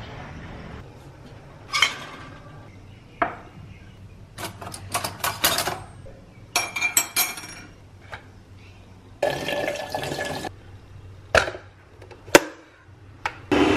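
Steel cutlery and kitchen utensils clinking as they are handled in a utensil holder, in quick clusters. Then a second-long rush of water into a stainless steel electric kettle, followed by a couple of sharp single clicks.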